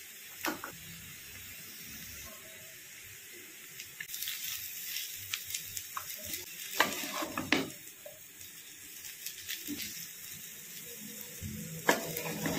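Noodles and shredded vegetables sizzling in a frying pan, with a spatula stirring and tossing them. The scraping starts about four seconds in, with a few sharper knocks of the spatula against the pan.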